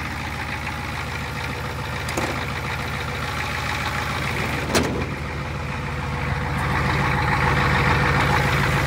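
Turbocharged Ford 6.9 diesel pickup engine running steadily, getting louder about two-thirds of the way through, with a sharp click about halfway.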